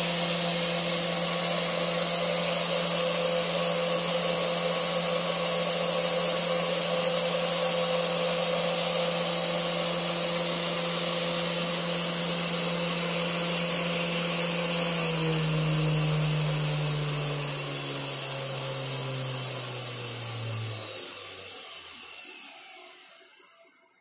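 500 W 48 V DC CNC spindle motor running steadily at full speed, about 12,000 rpm, a steady hum with the rush of its cooling fan. About fifteen seconds in, its pitch starts falling as it spins down, and it fades to a stop over the next several seconds.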